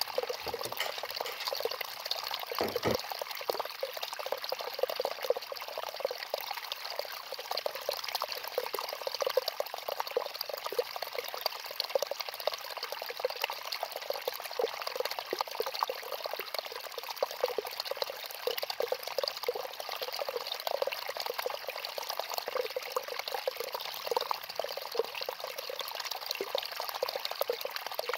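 A continuous trickling, water-like sound, steady and without a break, made of many small crackles and with almost no low end.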